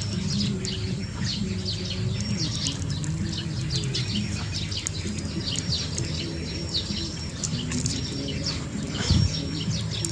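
Many small birds chirping continuously in quick, short, downward-sweeping notes, over a low steady hum, with one bump about nine seconds in.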